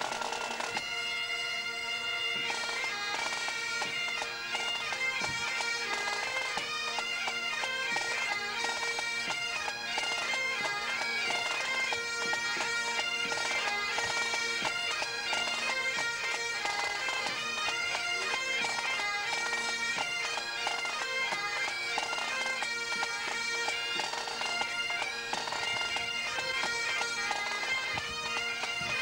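Scottish pipe band's Highland bagpipes playing a tune, the chanter melody running over the pipes' steady drone.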